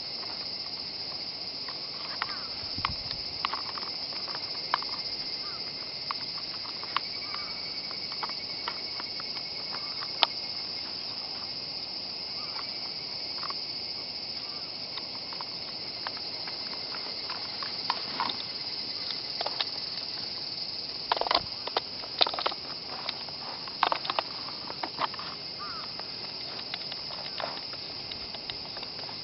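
Scattered sharp clicks and knocks of a WE G39C gas blowback airsoft rifle's parts being handled as it is taken apart, busiest in the second half. A steady high chorus of insects runs underneath.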